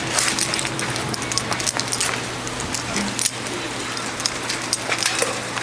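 Rain falling and pattering on surfaces, with scattered sharp clicks and ticks, over a steady low hum.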